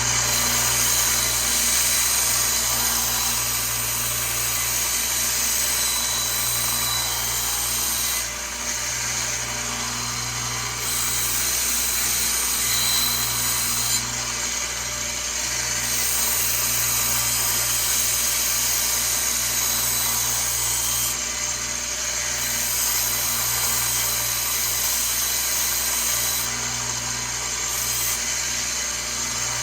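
Powered grinder running steadily while a steel knife blade is ground against it to take a nick out of the edge. The high grinding hiss drops away briefly about four times while the motor keeps running.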